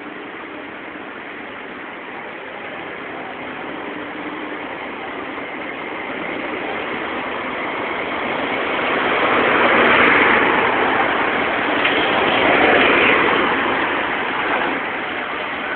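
Road traffic: cars and trucks driving past, the tyre and engine noise swelling as vehicles pass close, loudest about ten and again about thirteen seconds in, the second pass being a flatbed tow truck carrying a car.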